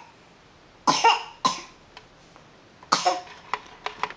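A person coughing three times in short, sharp bursts, two close together and one more a second and a half later, followed by a few small clicks.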